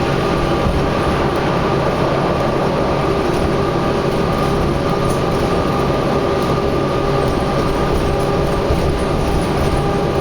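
Steady, unbroken vehicle and engine noise with a constant low hum, the sound of traffic along a highway.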